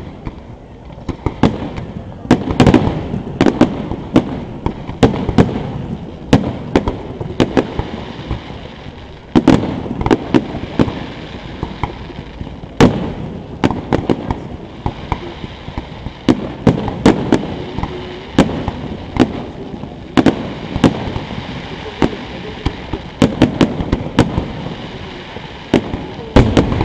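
Aerial fireworks shells bursting close by in a rapid, irregular barrage of sharp bangs, several at a time in dense clusters, with a continuous low rumble and crackle between them.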